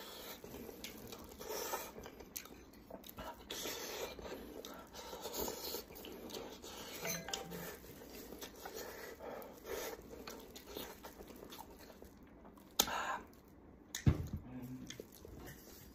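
Close-up chewing and smacking as a person eats meat pulled from a cooked sheep's head, with gloved hands handling the food, in soft, irregular bites. A sharper, louder noise comes about thirteen seconds in, and a brief low voiced sound just after fourteen seconds.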